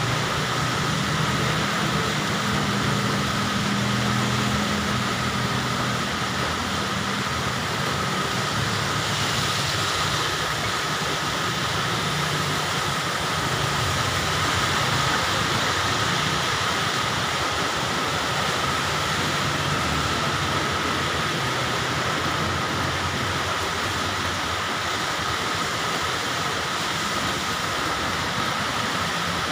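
Heavy rain falling steadily, with a low droning hum underneath that is strongest in the first few seconds, and a faint steady high tone.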